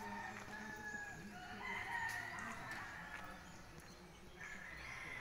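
A rooster crowing: a long held call about one and a half seconds in, and another crow starting near the end.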